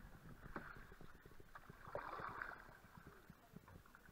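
Faint splashing of canoe paddles dipping into slow river water, with a louder splash about two seconds in.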